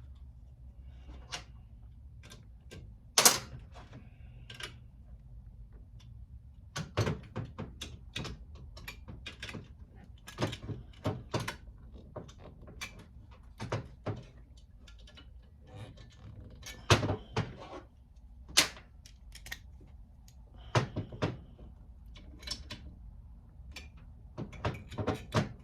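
Irregular clicks and knocks of hand tools on metal as bolts are driven back into a heater fan motor's housing and snugged down, with a low steady hum underneath.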